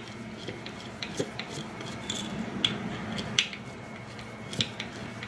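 Scattered light clicks and clinks of a small screw, washer and hand tools being handled while fitting a screw into a wooden toy's leg, over a faint steady low hum.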